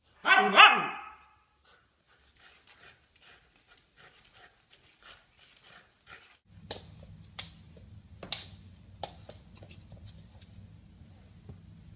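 Puppy sounds: a short falling whine right at the start, then soft panting and small snuffles. In the second half a low steady hum comes in, with a few sharp clicks.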